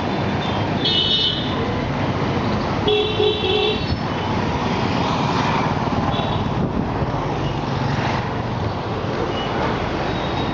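Short high-pitched vehicle horn beeps over steady traffic noise, two clear beeps about one and three seconds in and a fainter one later.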